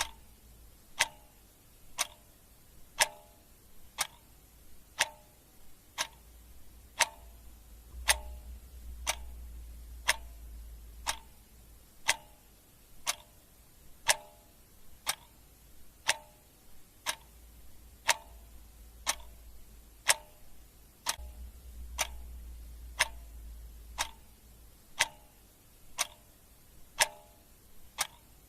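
Clock ticking steadily once a second, each tick a sharp click with a brief ringing tone.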